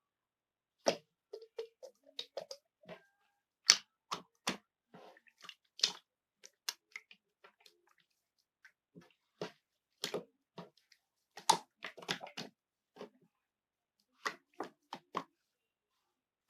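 Honey slime being squeezed and pressed by hand, making irregular sharp wet clicks and pops with short squelches between gaps.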